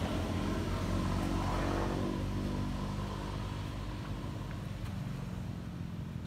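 A motor vehicle's engine running, loudest in the first two seconds and then fading away.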